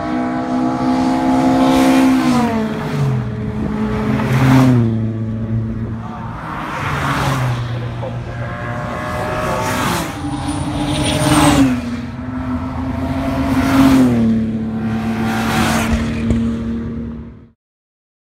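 Track-day cars driving past at speed one after another on a circuit straight, each engine note rising in loudness and dropping in pitch as the car goes by. The sound cuts off suddenly near the end.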